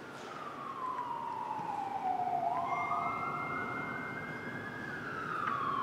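An emergency vehicle's siren wailing, its pitch sliding slowly down, back up and down again, about one full sweep every five seconds. A faint steady high tone sits under it near the middle.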